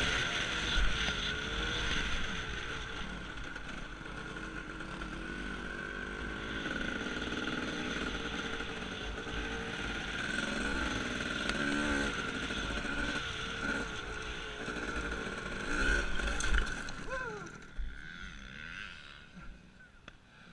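Dirt bike engine revving up and down through the gears on a motocross track, heard from a helmet camera, with wind and noise over it. The engine sound falls away over the last few seconds.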